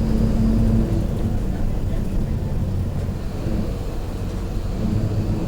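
Mercedes-Benz OF-1721 BlueTec 5 city bus under way: diesel engine running with a growl from the differential. A steady low hum, with a higher droning tone that holds for about the first second and then fades.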